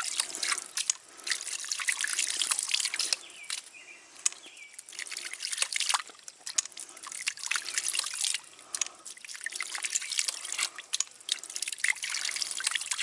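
Water spurting and splashing from a hydraulic ram pump's brass waste valve as it is worked by hand, with many sharp clicks, in spells of a few seconds each. The pump is being primed this way so it builds pressure until it cycles on its own.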